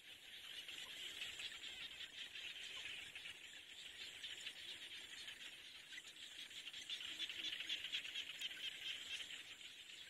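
Faint, steady, high-pitched chorus of small calling animals, a dense rapid buzz that swells slightly a little past the middle.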